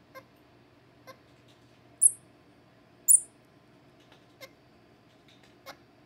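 Infant squirrel monkey giving two short, very high-pitched chirps about a second apart, with a few faint clicks in between: the calls of hungry babies waiting to be fed.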